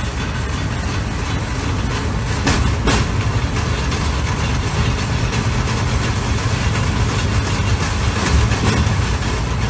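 Steel wheels of a pedal-powered rail bike rolling along the track in a steady low rumble, with two short clacks about two and a half seconds in.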